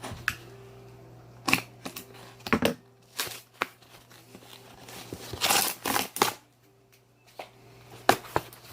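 A shipping package being opened and its packing material handled by hand: irregular rustling, scraping and crinkling noises, with a longer stretch of it about five seconds in.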